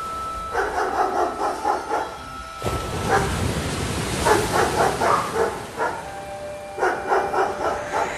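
Dog barking in quick runs of about five barks a second: three runs, each a second or two long, separated by short pauses.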